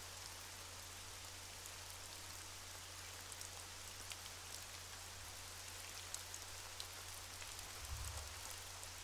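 Faint underwater ambience: a steady crackling hiss with scattered tiny clicks, under a constant low hum. There is a soft low thud about eight seconds in.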